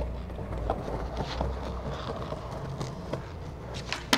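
Skateboard wheels rolling on stone paving, a steady low rumble, as the skater rides in for a 360 flip. Near the end come the snap of the tail pop and a loud clack as the flipping board comes down.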